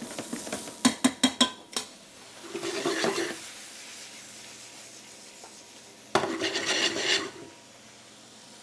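A wooden spoon stirs risotto rice in a stainless steel saucepan, with a quick run of sharp knocks against the pot about a second in. Then a frying pan of wild mushrooms sizzles on an electric hot plate, with two louder bursts of pan scraping and sizzling about three and six seconds in; the second starts abruptly.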